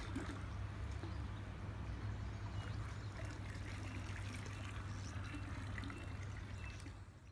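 Steady trickling and pouring of pool water over a low rumble; it fades out at the very end.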